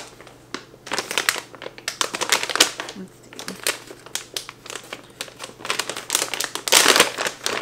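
Brown kraft paper mailer bag crinkling and crackling as it is pulled open by hand, a dense run of sharp paper crackles that grows loudest near the end.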